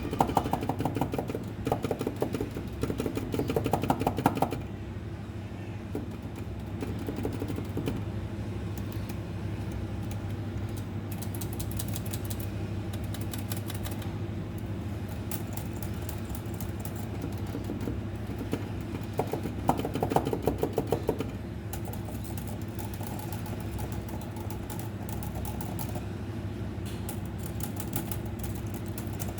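Mechanical keyboard being typed on: rapid clicky keystrokes throughout, louder and denser in the first few seconds and again about twenty seconds in, over a steady low hum.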